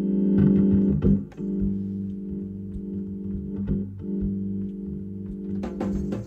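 Hammond organ holding a low sustained chord, re-struck after short breaks about a second in and again just before the middle; drum and cymbal hits come in near the end.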